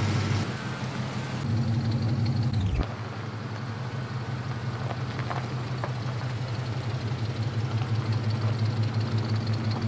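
Engine of a 1986 Chevrolet squarebody pickup idling steadily with an even low pulse. The sound changes abruptly about three seconds in and then carries on at the same idle.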